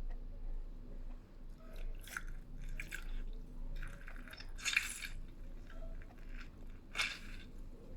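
A lemon half being squeezed and pushed down into a jug: a few short wet crunching, rubbing noises. The loudest comes about five seconds in and another about seven seconds in.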